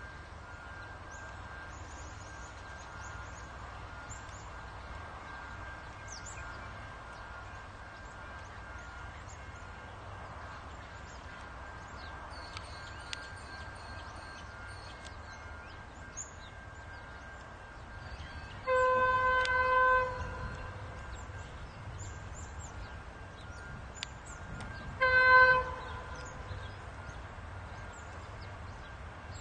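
Diesel-electric freight locomotive's horn sounded twice as the train approaches: a blast of over a second about two-thirds of the way through, then a shorter, louder blast about six seconds later.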